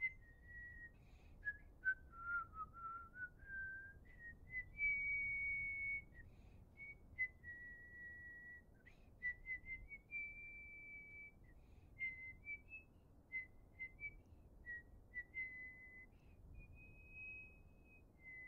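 A person whistling a slow tune alone: long held notes joined by short slides up and down.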